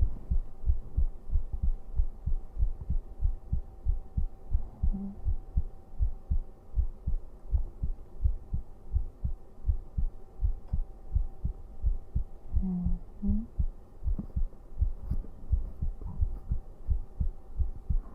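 A person's heartbeat heard close up: a steady, regular low thumping pulse.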